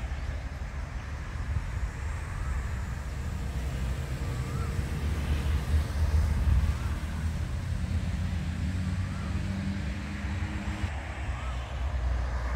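Outdoor ambience dominated by a low engine rumble, with a steadier motor tone in the middle that cuts off about eleven seconds in. A faint short chirp repeats about every two seconds.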